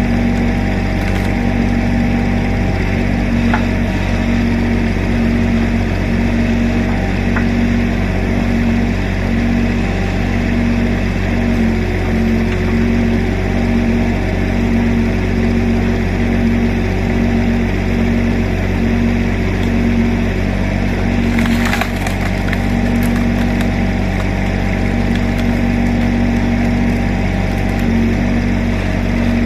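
Mini excavator's diesel engine running steadily with a regular throb, about one and a half pulses a second, while its hydraulics work a log-splitter attachment. A brief rush of noise comes about twenty-one seconds in.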